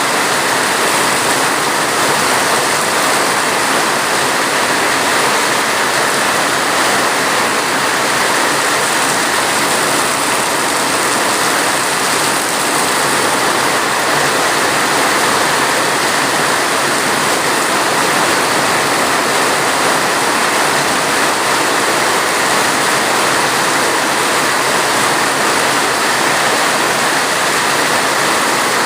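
Heavy rain falling steadily: a dense, even hiss with no separate drops or thunder standing out.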